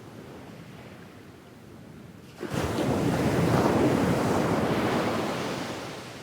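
Ocean waves on a sandy beach: a low wash, then a wave breaks suddenly about two and a half seconds in, and its loud surge of surf runs up the sand and fades away near the end.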